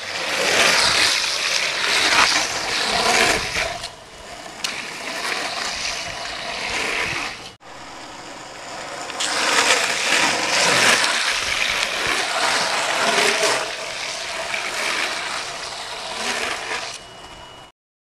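Longboard wheels rolling and sliding on asphalt during pendulum slides: a rough hiss that swells and fades with each slide, now and then with a thin squeal. It drops out briefly about seven and a half seconds in and cuts off shortly before the end.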